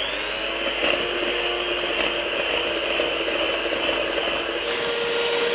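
Electric hand mixer running steadily with a motor whine, its twin beaters whipping cream and sugar; its pitch steps up slightly near the end.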